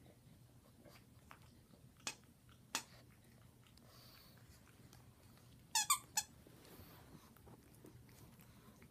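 Short high-pitched squeaks as a papillon puppy and a pug play-wrestle: two single squeaks, then three quick squeaks together about six seconds in.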